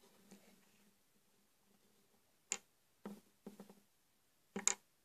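A few faint clicks and taps from plastic toy figures being handled: one sharper click about two and a half seconds in, a small cluster of ticks soon after, and a quick pair of clicks near the end.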